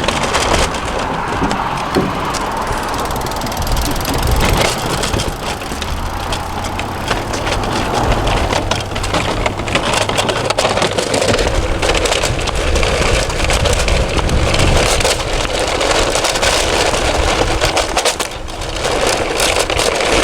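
Continuous crunching and scraping of sand, gravel and small rocks, full of dense crackles, as things are pushed and moved through the stony beach.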